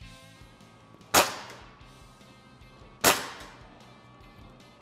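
Umarex Gauntlet .22 calibre PCP air rifle firing two shots about two seconds apart, each a sharp crack with a short ringing tail. A sound level meter reads about 90.5 dB at its peak.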